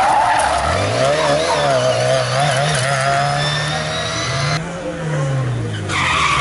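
Historic rally car engines driven hard: a classic Mini's small four-cylinder engine revs up, holds a steady, wavering note, then climbs to a peak about four and a half seconds in and falls away. The sound then cuts to another car.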